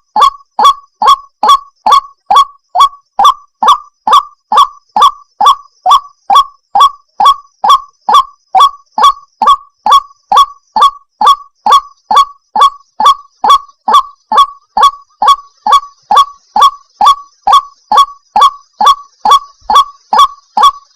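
A female white-breasted waterhen gives a long, unbroken string of harsh, honking 'wak' calls, about two a second. This is the repetitive ruak-ruak call used to lure the species.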